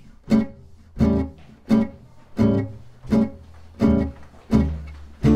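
Background music: an acoustic guitar strummed in a slow, even rhythm, about one strum every 0.7 seconds, each chord ringing out and fading before the next.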